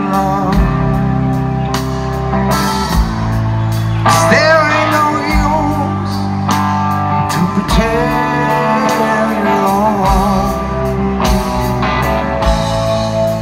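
Live rock band playing a slow song: a male singer holding long, wavering notes over electric guitars and a slow drum beat, recorded from the audience.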